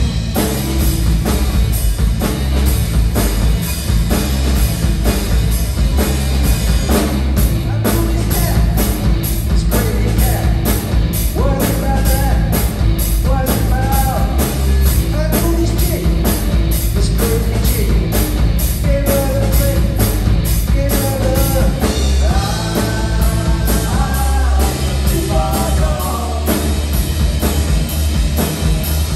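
Live rock band playing loudly, with electric guitars and a drum kit keeping a steady cymbal beat. A man sings lead over it from about a third of the way in.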